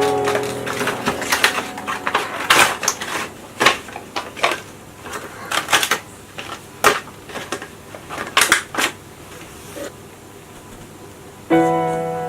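A baby grooming kit's packaging being opened and handled by hand: a run of sharp clicks, taps and rustles that dies down after about nine seconds. Soft piano music comes back in near the end.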